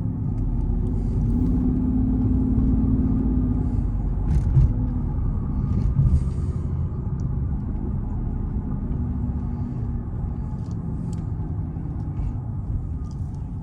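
Mercedes CL600's twin-turbo V12 running under load while driving, heard from inside the cabin as a low rumble that swells in the first few seconds and then settles, with a couple of light knocks. It is running smoothly on all twelve cylinders now that the misfire is fixed.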